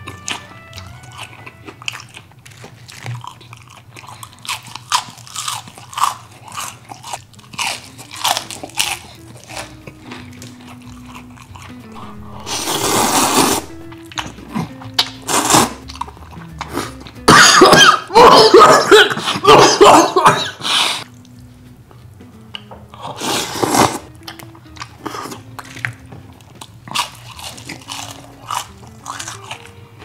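Close-up eating sounds: crisp crunching and chewing of fried battered seafood, in many short sharp bites. Louder stretches of slurping spicy instant noodles come around the middle. Soft background music plays underneath.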